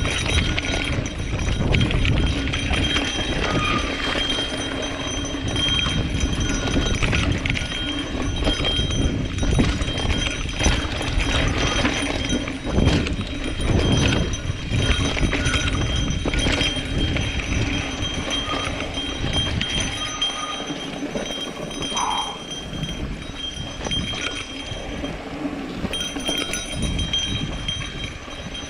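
Mountain bike riding down a rocky dirt trail: tyres crunching over dirt and stones and the bike rattling with frequent clattering knocks over bumps, under a heavy rumble of wind on the microphone. The low rumble eases about two-thirds of the way through.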